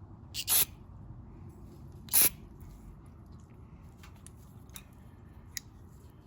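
Two short hisses of aerosol carburetor cleaner sprayed into the carburetor's air bleed holes, about half a second in and just after two seconds, followed by a few light clicks of handling.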